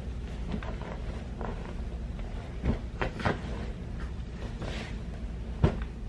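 Rustling and a few soft knocks as someone moves about right beside the camera. The loudest is a single sharp knock near the end, all over a steady low hum.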